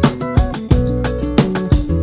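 Background music: an upbeat track with plucked guitar over a steady beat.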